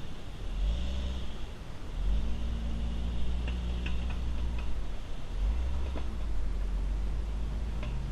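Off-road 4x4's engine running at low revs as it crawls over rocks, dipping off the throttle and back on a few times. A few light clicks partway through.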